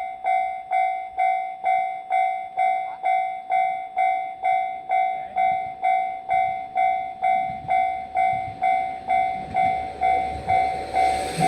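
Japanese level-crossing warning alarm ringing its steady "kan-kan" tone, about two strokes a second. From about halfway through, the low rumble of an approaching train builds under it and grows loud near the end.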